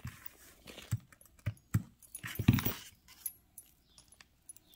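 Pearl necklace with small purple beads being picked up and handled, the pearls clicking and rattling against each other in a series of small, irregular clicks, with a louder knock-and-rustle cluster about two and a half seconds in.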